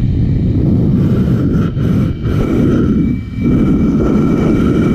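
Electric leaf blower running hard with a steady whine, its air blast hitting the microphone and filling it with heavy wind rumble. The rumble dips briefly twice in the middle as the blast shifts.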